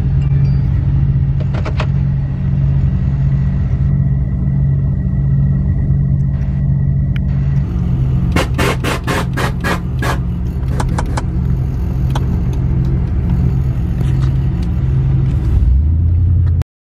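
A 6.2-litre V8 pickup engine and exhaust running with a steady, heavy low drone. About eight seconds in comes a quick run of sharp cracks.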